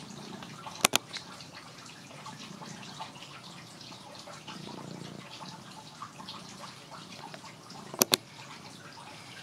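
Long-haired orange cat purring while a hand strokes its head, the purr swelling and fading in waves under a light rustle of fur. Two sharp double clicks cut through, about a second in and near the end.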